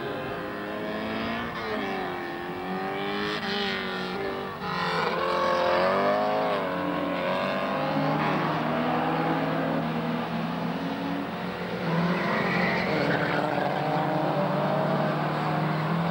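Several saloon race car engines revving as the cars pass through the track's curves. Their pitch keeps rising and falling as they lift and accelerate, and several engines overlap.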